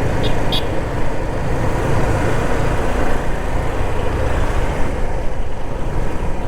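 Steady rush of wind and road noise from a Suzuki Gixxer SF 250 motorcycle on the move, with no clear engine note above it.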